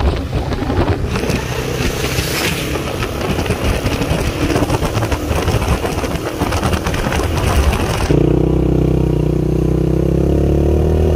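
Motorcycle engine running while riding, with wind rushing over the microphone. About eight seconds in the rushing noise drops away abruptly and the engine note is heard plainly, rising in pitch near the end as the bike speeds up.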